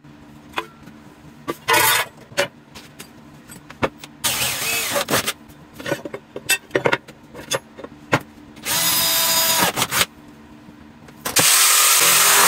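Corded jigsaw cutting sheet metal: three short bursts of cutting with the clatter of the plate being handled between them, then steady cutting from about a second before the end.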